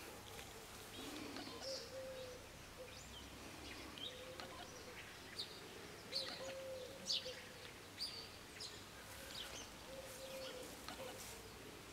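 Birdsong outdoors: small birds chirping in short high notes, with a low, repeated cooing call sounding every second or two.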